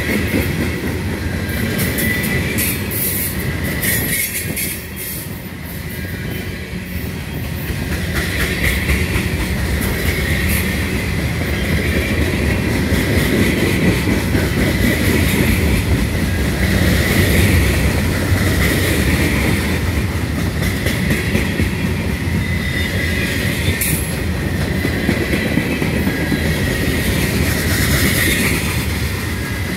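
Freight train cars, covered hoppers and boxcars, rolling past close by with a steady heavy rumble and the clack of wheels over the rail. A thin high squeal from the wheels swells and fades every few seconds.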